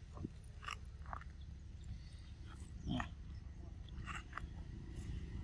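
Long-tailed macaque biting and chewing an ear of corn on the cob: scattered short crisp clicks of kernels cracking between the teeth, with one brief low monkey call about three seconds in, over a steady low rumble.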